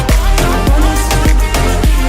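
Background music: an upbeat tropical-pop dance track with a heavy bass beat, playing an instrumental stretch between sung lines.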